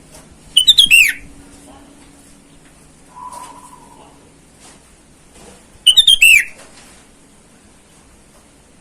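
Sooty-headed bulbul (kutilang) giving two loud bursts of quick, falling chattering notes, about five seconds apart.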